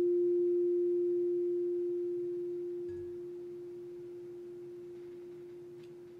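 Quartz crystal singing bowl ringing out on a single pure, steady tone that slowly fades away.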